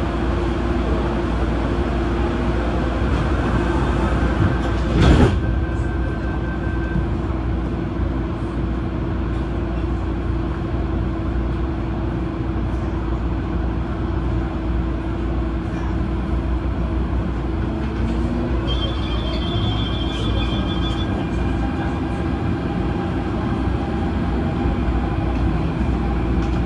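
Adtranz-CAF electric multiple unit train running, a steady rumble with a steady hum. There is one sharp knock about five seconds in, and a short high beeping about two-thirds of the way through.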